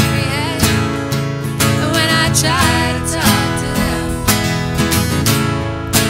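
Two acoustic guitars strummed in a steady rhythm, with a woman singing over them with vibrato.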